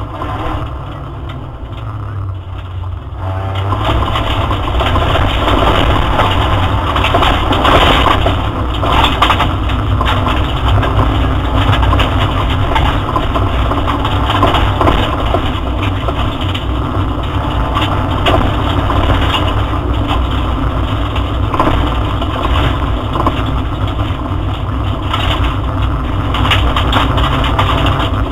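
Opel Astra GSi rally car at speed on a stage, heard from inside the cabin: engine and road noise with scattered knocks. It is quieter for about the first three seconds, then louder and fairly steady.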